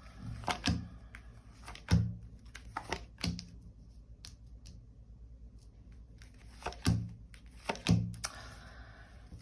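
Tarot cards being handled and laid down on a table: a few soft taps and thuds with brief sliding rustles, in two groups.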